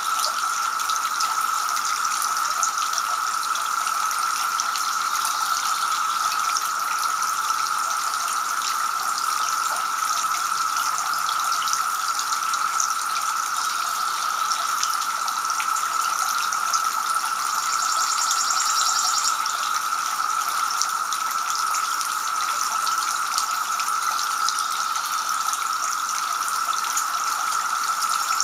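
Two-tier garden fountain running steadily, water spilling from the upper bowl and splashing into the basin below.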